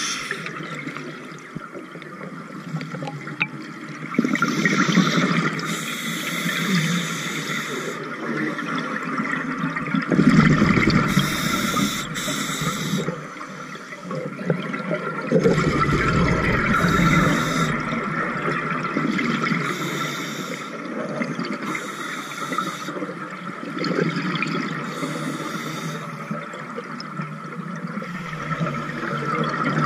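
Scuba diver breathing through a regulator underwater: a hissing inhalation every few seconds, with bursts of exhaled bubbles rumbling twice, about ten and fifteen seconds in.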